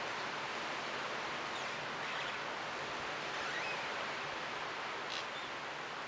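Leaves of a tree rustling in the wind: a steady, even hiss.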